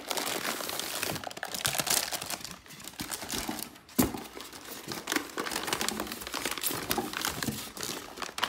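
Plastic packaging crinkling and rustling as a modular PC power supply is unpacked and handled, with one sharp click about four seconds in.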